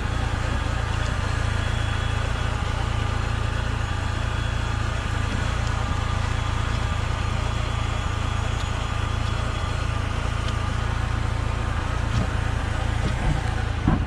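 Lada Niva Travel's 1.7-litre four-cylinder petrol engine running steadily while the car drives, a constant low rumble with no revving. A couple of faint knocks near the end.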